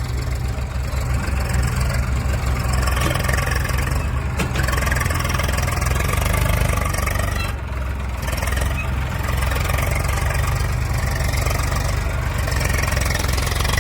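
Diesel engine of a tractor or backhoe loader running steadily with a low throbbing rumble.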